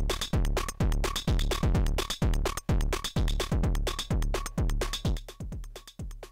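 Drum machine beat run through the Orobas dual tube amplifier module used as a distortion: deep kick drums that drop in pitch, about two a second, with sharp hat ticks between, thickened by tube saturation. About five seconds in the beat gets quieter and cleaner.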